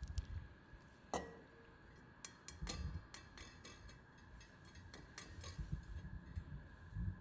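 Light ticks and taps of kitchen utensils and shrimp against bowls and trays while the shrimp are coated in flour, beaten egg and panko. There is one ringing clink about a second in, with soft low thuds among the taps.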